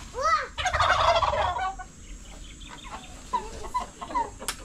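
A turkey gobbling: a short rising-and-falling call, then a rapid rattling gobble of about a second. A few short soft bird calls follow, and a sharp click near the end.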